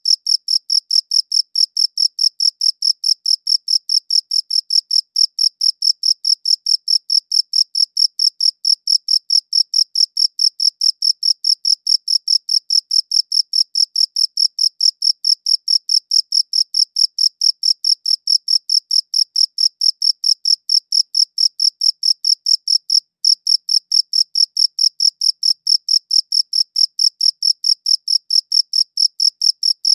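A cricket chirping in a steady, fast rhythm of about four high-pitched chirps a second, with one brief break about three quarters of the way through.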